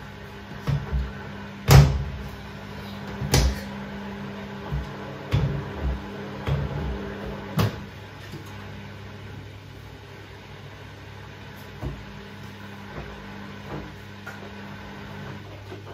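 Front-loading washing machine tumbling a wet load of clothes: a steady motor hum with irregular thuds and knocks as the clothes drop in the drum, the loudest about two seconds in. The knocks thin out after about eight seconds, leaving mostly the hum.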